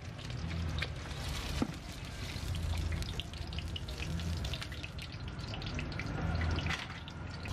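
An egg frying in hot oil in a wok, sizzling with a dense crackle of small pops, over a low rumble.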